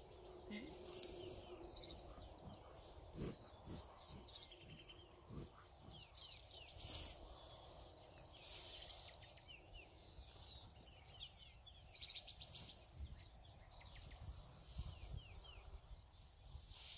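Quiet bush sounds: small birds chirping over and over, with short rustling and tearing of dry grass and a few soft thuds as a black rhino feeds a few metres away.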